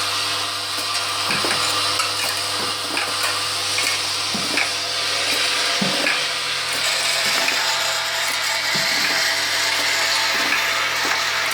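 Automatic oil seal assembly machine running: a steady machine hum and hiss with sharp mechanical clicks and knocks about once a second as it works. A low hum drops away about halfway through.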